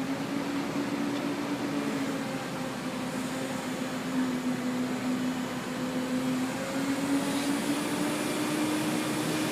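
A motor or engine running steadily, its pitch sagging slightly for a few seconds and then rising a little again.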